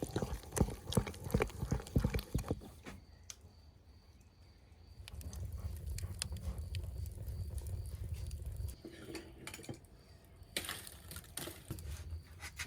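Scattered light knocks and taps, with a low steady rumble for a few seconds in the middle.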